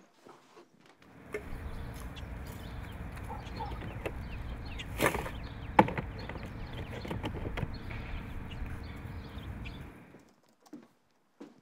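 Steady outdoor background noise with a low rumble, and a plastic trash can's lid being handled: a few knocks near the middle, the loudest about six seconds in.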